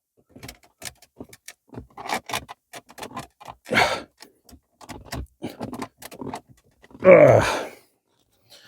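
Irregular clicks, rattles and scrapes of plastic dashboard trim being worked by hand against a clip that won't release, on a Fiat 500. About seven seconds in comes a short strained grunt of effort.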